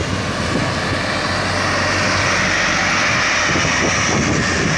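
Diesel engines of heavily loaded sugarcane trucks working under load as they pass close by, a steady loud drone with a low engine hum.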